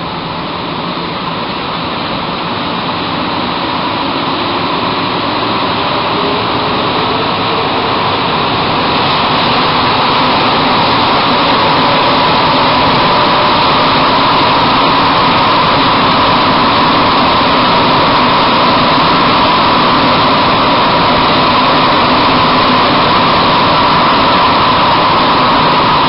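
Bombardier-Vickers MR-63 rubber-tyred metro train heard from inside the car as it accelerates away from a station and runs through the tunnel. A rising whine over the first ten seconds or so, then a steady loud running noise with a constant hum.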